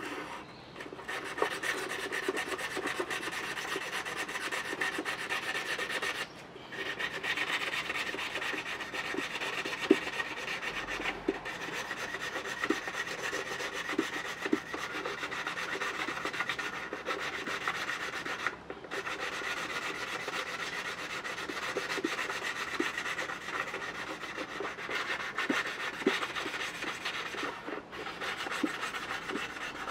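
Steady rasping, rubbing work on a bamboo fishing-rod section, with small clicks of the rod shifting against wood. It stops briefly several times.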